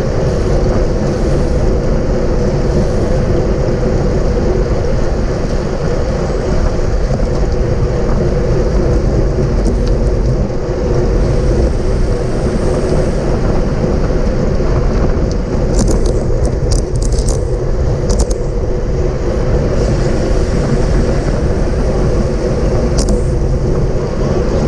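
Steady, loud wind buffeting on a bike-mounted action camera's microphone while riding at race speed, with a few sharp clicks about two-thirds of the way through.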